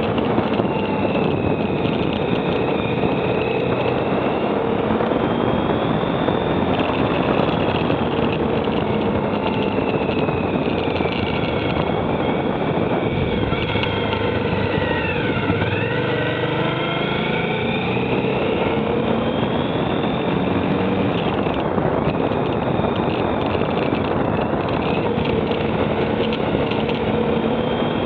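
Motorcycle engine running under way, its pitch rising and falling with the throttle and gear changes, dropping and then climbing again about halfway through as the bike slows into a bend and accelerates out. A steady rush of wind and road noise sits underneath.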